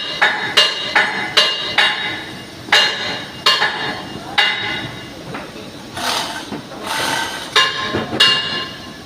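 Metal being struck with a hammer, each blow ringing: about two blows a second at first, then slower and more spaced out. A brief hiss comes about two-thirds of the way through.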